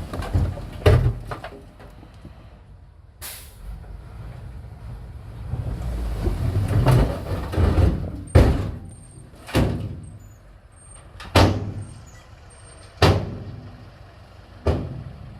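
Heavy earthmoving machinery at work: a series of sharp clanks and bangs, about seven, each ringing out briefly, over a low engine rumble.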